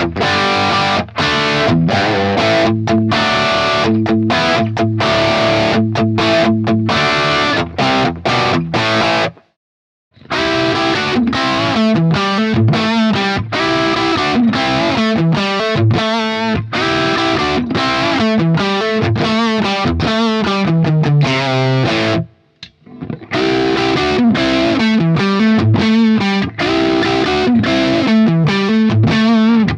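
Les Paul electric guitar through a BSM 71/73 treble booster into a Marshall JTM45 tube amp, playing crunchy, overdriven hard-rock riffs that mix chords and single-note lines. The playing stops for under a second twice: about nine seconds in, and again about twenty-two seconds in.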